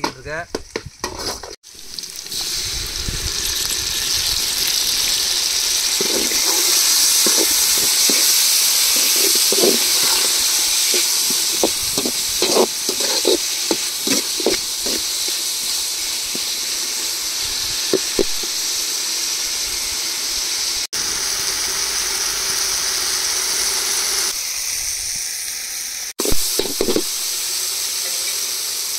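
Halved shallots frying in hot oil in a pan, sizzling steadily, with a spoon stirring and scraping now and then.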